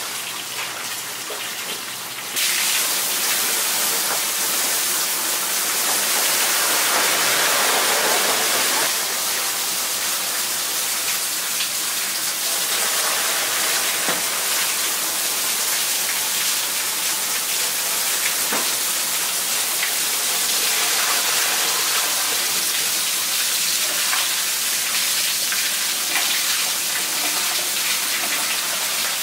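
Water from a kitchen faucet gushing into a large industrial cooking kettle of liquid: a steady rushing hiss that gets louder about two seconds in.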